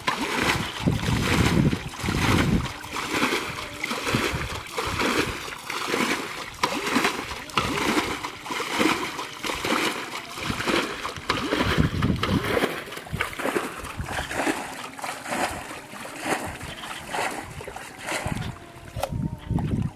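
Shallow muddy water splashing and sloshing in a run of irregular bursts as it is scooped by hand and with a metal bowl.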